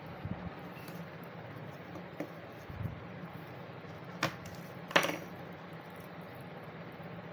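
Small clicks and taps of a metal screwdriver and the pieces of a taken-apart dry cell being handled on a paper-covered table, the sharpest two about four and five seconds in, over a steady low hum.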